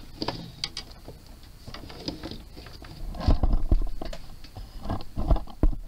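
Handling noise from a fishing rod and spinning reel being moved about on a wooden desk: scattered clicks and soft knocks, busiest about three seconds in and again near the end.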